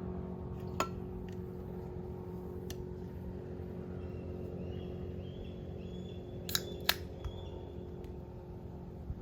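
A steady low engine drone, with a few sharp clicks: one about a second in and two close together near the end.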